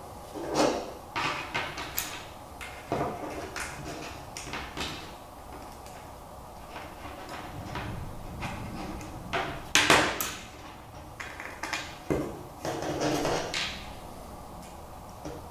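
Small clicks, scrapes and rustles of kit parts being handled as spacers are screwed onto perforated panels. The sharpest clack comes about ten seconds in.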